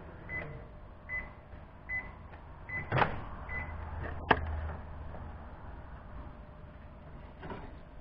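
Panasonic microwave oven beeping five times, evenly spaced, to signal the end of its heating cycle. Then two sharp clicks about a second apart as the door is unlatched and swung open; the second click is the loudest.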